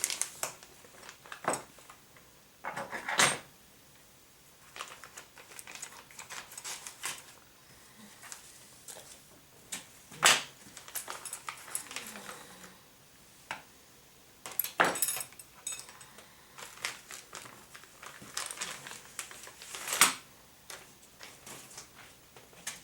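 Small plastic and metal parts of a radio-controlled car kit clicking, tapping and clattering as they are handled and fitted together by hand, with a few sharper knocks scattered through.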